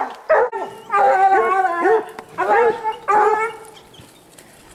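Hunting hounds baying and barking at a bear treed above them: a run of several drawn-out calls in quick succession, quieter near the end.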